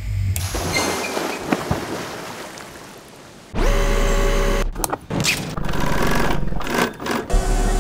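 A run of machine sounds: a fading hiss, then a motor starts abruptly with a steady hum about halfway through, a couple of sharp knocks follow, and an industrial sewing machine runs near the end.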